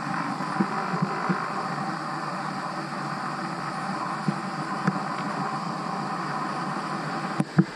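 Steady rushing noise of riding downhill, from the road and the wind, with a few short knocks from bumps.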